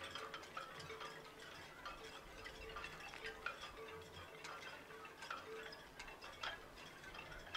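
Faint background music of tinkling, chime-like notes over a soft repeating tone, with light ticking.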